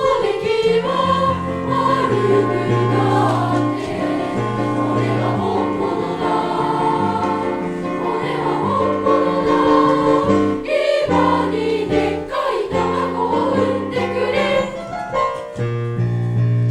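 A school class choir singing a song together in full voice.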